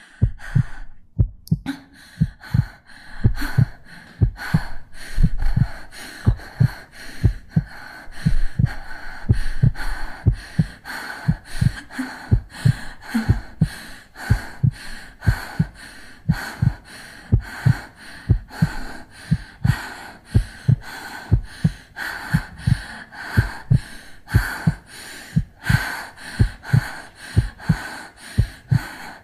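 A girl's heartbeat: a steady, regular run of short low thumps, mostly in lub-dub pairs, with breathing heard behind it.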